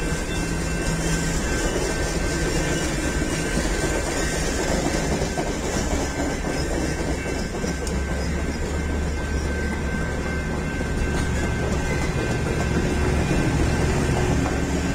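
Rocky Mountaineer passenger cars rolling past a grade crossing, a steady rumble of wheels on rail. A few steady high tones run over it.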